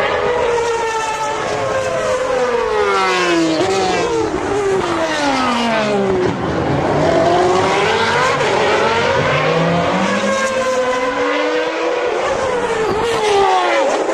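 Several 1992 Formula One cars' high-revving engines passing one after another through a corner. Their pitch falls as they brake and change down, then climbs as they accelerate away, the cars' notes overlapping.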